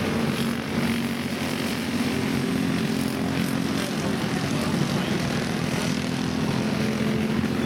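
Racing karts with Briggs & Stratton Animal single-cylinder four-stroke engines running at speed on track, several engines blending into a steady drone with no clear rise or fall.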